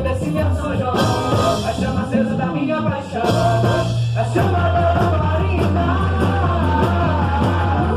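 Loud amplified quadrilha junina song: a singing voice over a steady beat, with a heavy bass line coming in a few seconds in.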